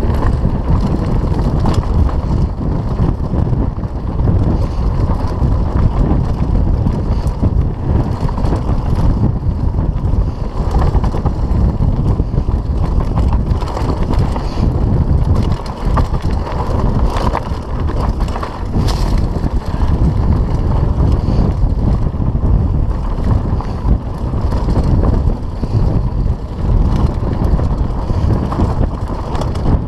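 Wind buffeting the microphone as a mountain bike rides fast down a dirt singletrack, with a steady low rumble and scattered knocks and rattles from the bike over the rough trail.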